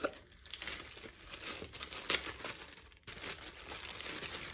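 Crinkly packaging being handled and unwrapped: continuous rustling and crackling, with one sharper crackle about two seconds in.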